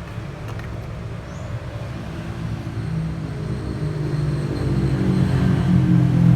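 A low engine hum that grows louder over the last few seconds.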